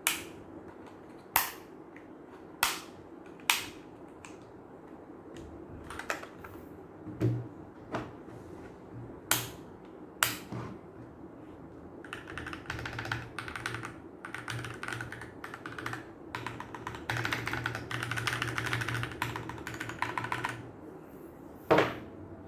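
Keychron K14 mechanical keyboard: a few single sharp key clicks spaced seconds apart, then about eight seconds of rapid typing, near the end.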